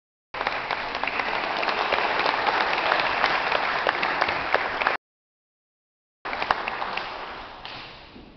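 Audience clapping. It breaks off suddenly about five seconds in, and after about a second of dead silence the clapping starts again and dies away.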